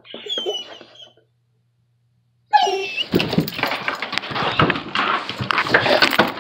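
A border collie whines in high, squeaky rising and falling glides for about a second, then falls silent. After the silence a loud run of rubbing, thumping and clattering begins, with a short whine at its start, as the phone is jostled about.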